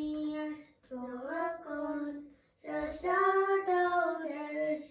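Children singing a short grace before a meal: three sung phrases of long held notes with brief breaks between them.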